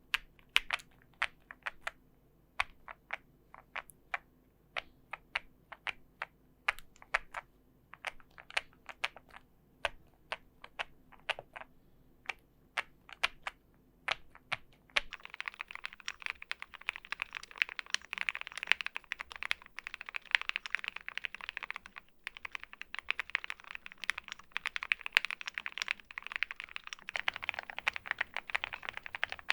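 Custom mechanical keyboards being typed on. The first half is separate, unhurried keystrokes. From about halfway comes fast, continuous typing on a Jelly Epoch, and near the end the typing switches to the OwLab x Mr. Suit gasket-mount keyboard fitted with lubed 43 Studio Popu switches, which sounds fuller and lower.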